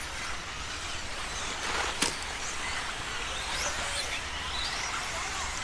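Radio-controlled 4WD racing buggies running on the track: a steady hiss of tyres on the surface with faint motor whines rising and falling as cars pass, and a sharp knock about two seconds in.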